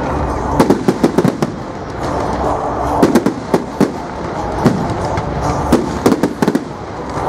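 Fireworks display going off: clusters of sharp bangs and crackles, several a second, over a continuous rumble of further bursts.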